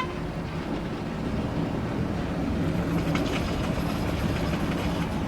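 A tour boat's engine running steadily with a low, even hum that grows a little louder, and a single sharp click at the very start.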